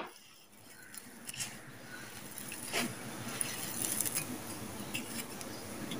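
Crumbled dry red sand-cement trickling and pattering from cupped hands onto a loose heap, a soft grainy crunching with a few sharper ticks of falling grit.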